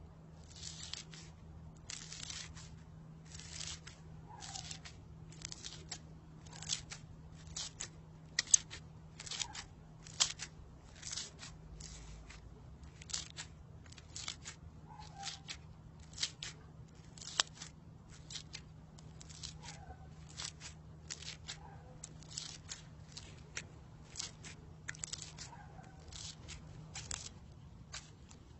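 Crunchy slime being squeezed and pressed by hand, giving a crisp crackle about twice a second, over a faint steady hum.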